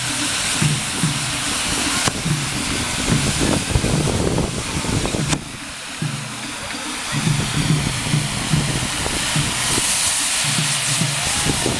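Tezutsu hand-held tube fireworks spraying sparks with a loud, steady hiss, over a low rhythmic taiko drumbeat. The hiss dips briefly about five seconds in and grows brighter near the end.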